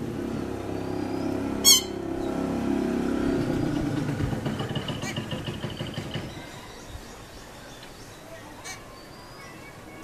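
A motor engine drones steadily and fades away over the first half, with a single sharp click about two seconds in.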